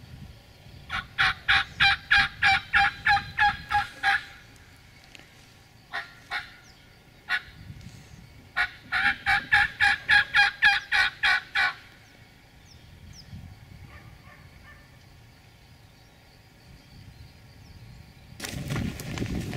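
Hand-held turkey call blown by a hunter: two long runs of loud, sharp hen yelps, about four notes a second, with a few single notes between them. A burst of rustling noise comes in near the end.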